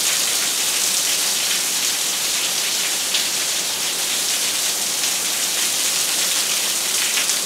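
Heavy downpour: a steady rush of rain, with water pouring off clogged, overflowing gutters.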